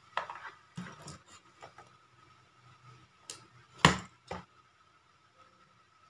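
Handling noise as a security camera and a smartphone are moved about on a desk: a scatter of short clicks and knocks, the sharpest about four seconds in.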